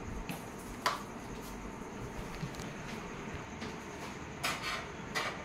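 Handling noises from a split air conditioner's indoor unit being unpacked: a sharp click about a second in, then short rustles of its plastic wrapping near the end, over a steady faint hiss.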